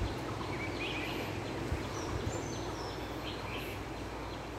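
Outdoor forest ambience: a few short bird chirps over a steady background hiss.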